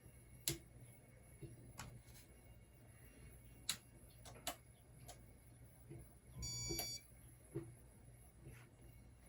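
Casablanca Panama 5 ceiling fan running quietly with a low steady hum, broken by scattered sharp clicks and one short electronic beep about two-thirds of the way through.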